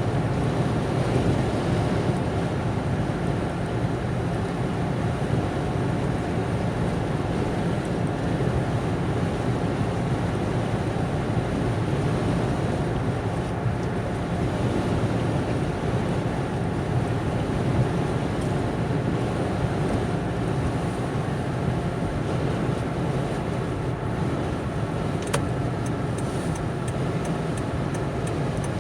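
Steady tyre and engine noise of a car driving on the highway, heard inside the cabin. About three seconds from the end, a regular faint ticking of the turn signal starts.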